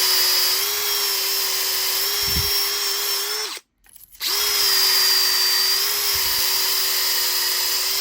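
A drill spinning a battery-terminal cleaner brush on the end of a 15 mm copper pipe to clean it: a steady, loud motor whine with a hiss. It cuts off suddenly about three and a half seconds in and starts up again just after four seconds.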